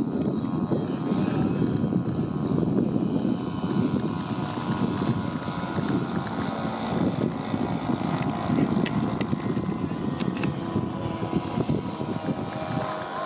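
Lazer 25cc petrol engine and propeller of a scratch-built 82-inch RC Chipmunk model plane droning steadily as it flies overhead.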